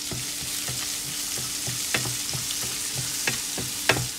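Chopped onions sizzling in hot oil in a non-stick pan while a wooden spatula stirs them. The spatula knocks against the pan about four times a second, with a few sharper clicks, the loudest near the end.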